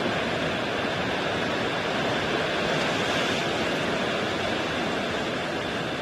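Ocean surf: a continuous rush of breaking waves, swelling slightly about three seconds in.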